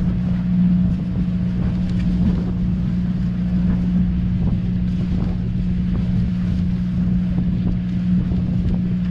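Fishing boat's engine running steadily, a constant low hum with a rumble beneath it.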